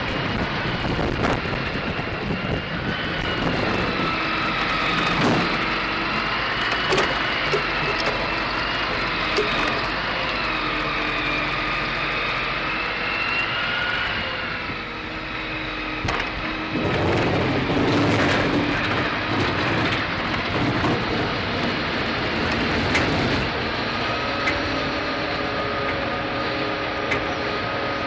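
Mobile wood chipper with a hydraulic crane working: a steady heavy machine noise with a whine that wavers in pitch as the crane moves. It grows louder and denser for several seconds past the middle.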